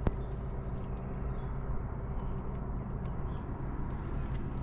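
Steady low hum of a boat motor, with a sharp click just as it begins and a few faint scattered ticks.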